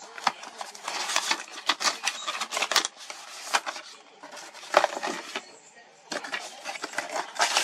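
Hands handling the packaging of a GoPro protective housing: irregular crinkling and clicking of plastic and paper as the contents are pulled out, with a couple of short pauses.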